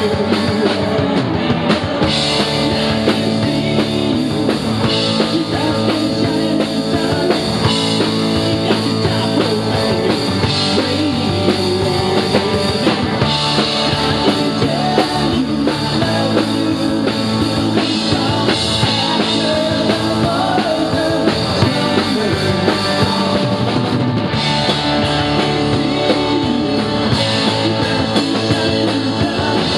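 Live rock band playing a song: electric guitars, electric bass and a drum kit, loud and continuous.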